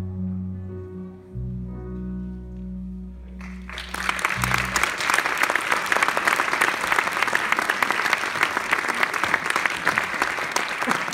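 The song's instrumental accompaniment ends on held chords over a low bass note. About three and a half seconds in, the audience breaks into applause, which keeps going.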